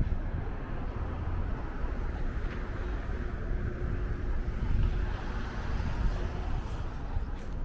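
Outdoor city street ambience: a low rumble that rises and falls, with no single clear source.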